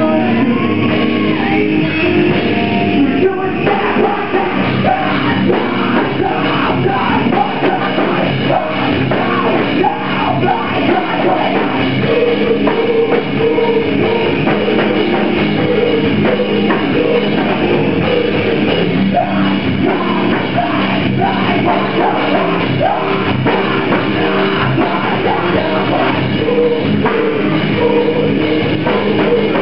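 Live rock band playing loud and without a break: electric guitars, bass guitar and drum kit, with a singer's vocals over the top.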